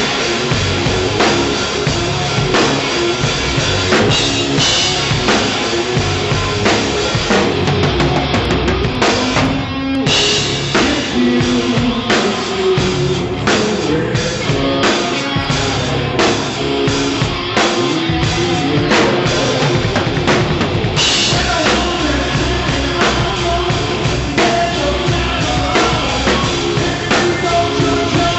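Tama rock drum kit played hard: kick drum, snare and cymbals driving a steady rock beat, with other band instruments sounding underneath.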